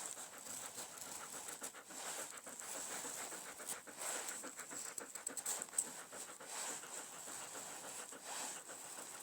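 A Martiini puukko shaving thin curls off a wooden stick while carving a feather stick, in short irregular scraping strokes, with a dog panting close by.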